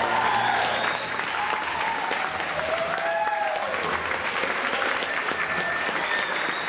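Audience clapping steadily, with a few long whoops over it.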